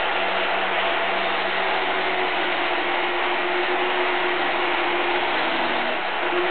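Angle grinder on a pendulum-saw frame, running steadily and loudly while its cut-off disc cuts through steel angle iron. A steady whine in the machine's sound gives way to a higher one about two seconds in.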